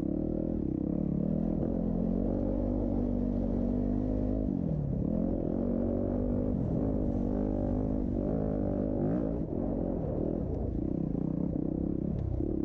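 Off-road racing engines running and revving, their pitch repeatedly rising and falling as the throttle is worked, with a deep drop and climb about five seconds in.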